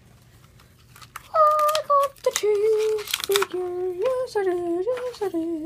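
A child's voice humming a short wordless tune in held notes that step up and down, starting about a second in, with clicks and rustles from a plastic figure being handled.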